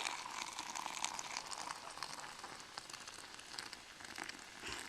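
Hot water being poured from a Jetboil pot, a steady splashing pour that slowly tapers off toward the end.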